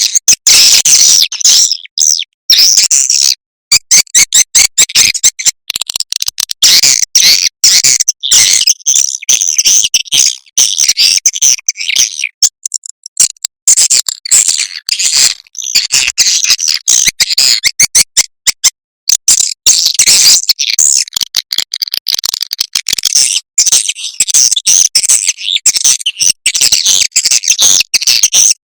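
Recorded swiftlet calls played as a swiftlet-house lure sound: a dense, high-pitched stream of rapid chirps and clicks, chopped by short gaps, with a brief lull about halfway through.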